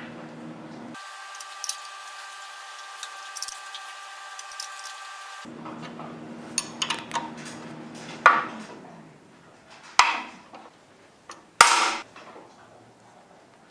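Sharp metallic clicks, then three loud knocks with brief ringing, from steel hand tools and the bolt working a bottle jack's piston loose from its cylinder in a vise.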